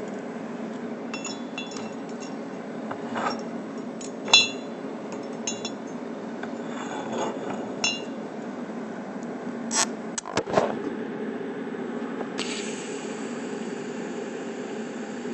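Steel pieces clinking and ringing against the metal welding table as the chrome moly tube sample is turned over and set in place, with a few knocks around ten seconds in, over a steady low hum. About twelve seconds in a TIG arc strikes and runs with a steady hiss.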